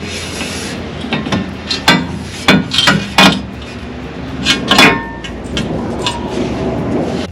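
Hand tools working the steel brackets and bolt hardware of a skid plate: a string of irregular metal clanks and knocks, with rubbing and scraping between them.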